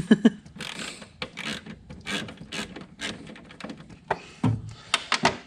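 Irregular metallic clicks and clinks of hand tools working bolts on a metal bracket, a run of sharp ticks with a few louder knocks.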